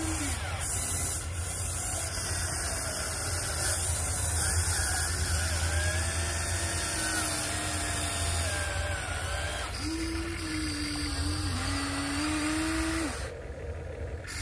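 Huina 1593 RC excavator's small electric motors whining as it works its arm and tracks, the pitch sliding up and down with the load over a steady low hum. A steady hiss of running stream water lies under it.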